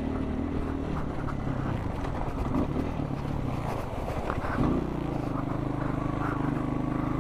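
Off-road motorcycle engine running while riding a trail, uneven with small knocks at first, then settling into a steady, louder drone about two-thirds of the way through.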